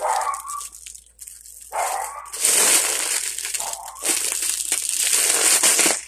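Mylar foil balloon crinkling as it is handled, then two long hissing draws, each about two seconds, as helium is sucked out through its neck.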